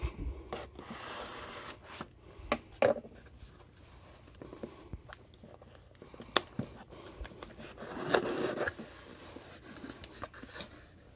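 Cardboard packaging being handled: a paper sleeve slid along a cardboard box, with soft scraping and rubbing and scattered light clicks and knocks. The longest sliding rub comes about eight seconds in.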